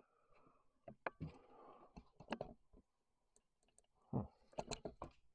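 Scattered clicks, knocks and scuffs, the sounds of someone moving about on a debris-strewn floor, with a cluster of sharper knocks near the end.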